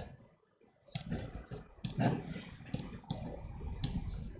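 Computer clicks, about six separate, sharp clicks spread over four seconds, over a faint low hum.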